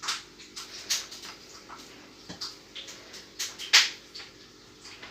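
Scattered light clicks and taps of hands and utensils working pastry dough. The sharpest tap comes a little under four seconds in.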